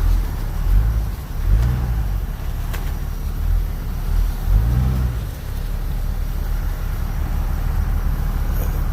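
Vehicle engine running while driving, its pitch rising and falling twice as it revs up and eases off: once about a second in and again around halfway.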